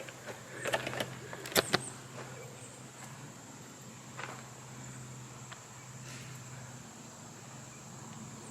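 Outdoor ambience on a hiking trail: a few sharp clicks and knocks in the first two seconds, the loudest about a second and a half in, then light scattered ticks, over a faint steady low hum that stops about seven seconds in.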